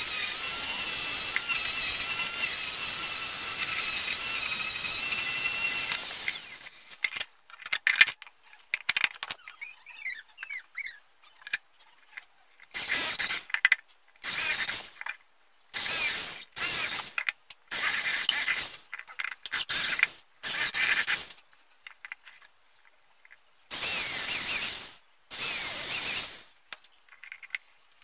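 Angle grinder with a sanding disc running steadily against a wooden board, stopping about six seconds in. After that, an electric hand drill is run in short bursts of about a second each, drilling into a wooden board.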